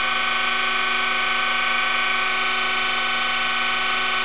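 Surface grinder running steadily with the motor-driven work centers: an even machine whine made of several fixed tones, holding level throughout, with no grinding contact heard.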